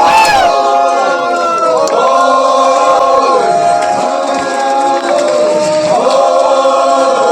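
A group of people chanting together in long held notes, several voices at different pitches, each phrase sliding down at its end and a new one starting about every two seconds.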